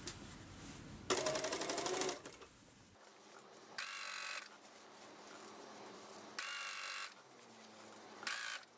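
Industrial lockstitch sewing machine stitching in short bursts. A longer run of about a second comes first, with a rapid needle rhythm. Three brief runs follow, each with a motor whine that rises and falls as it speeds up and stops.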